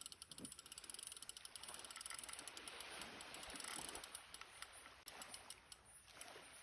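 Spinning reel's drag clicking in rapid, uneven ticks as a hooked giant trevally pulls line off against it. Faint, with a soft hiss underneath.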